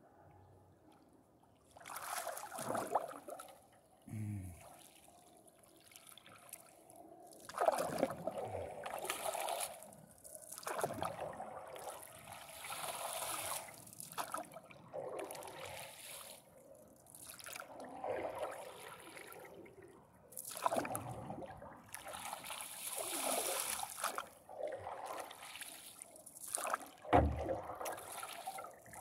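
Stand-up paddleboard paddle stroking through lake water: a swish and splash of the blade every two to three seconds, with water trickling off it between strokes. There is a sharp knock near the end.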